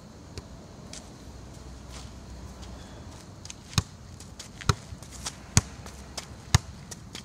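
A football being juggled off the outside of the left foot: four sharp kicks a little under a second apart, starting a bit under four seconds in, with fainter scuffs between them.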